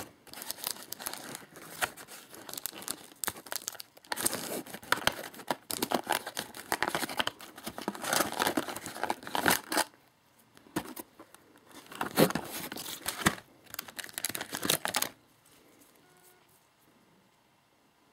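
Toy packaging being torn open and crinkled by hand, in a dense run of crackling bursts with short pauses, stopping about fifteen seconds in.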